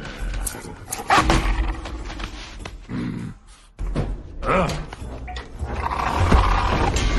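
Film sound effects of a scuffle: a series of thuds and short animal cries, with background music swelling near the end.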